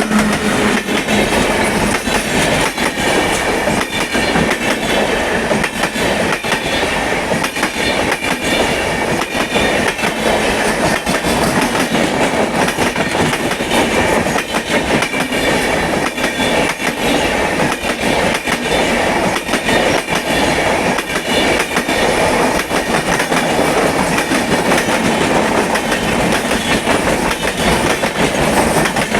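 Indian Railways passenger train passing at speed, loud and steady, its wheels clacking rapidly over the rail joints the whole way.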